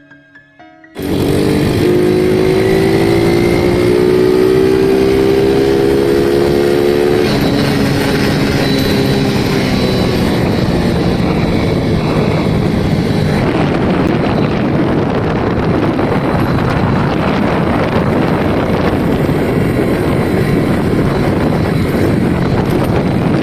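Yamaha Crypton 105 underbone motorcycle starting abruptly about a second in, its engine note rising for several seconds as it pulls away and accelerates. It then settles into steady riding, where the engine blends into a loud rushing noise.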